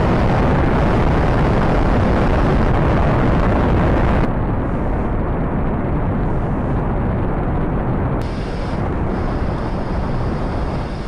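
Rocket engine exhaust rumbling during a launch: a loud, steady noise weighted to the lows. It changes abruptly about four and eight seconds in, as though cut between different recordings of launches.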